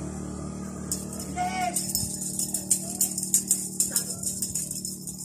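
Kittens playing with a wand toy on a concrete floor: rapid, irregular light clicking and rattling from about a second in. A short chirping call comes about a second and a half in, over a steady low hum.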